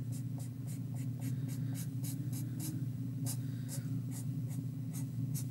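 Black marker drawing quick short strokes on paper, a dry scratch with each stroke, about four a second, over a steady low hum.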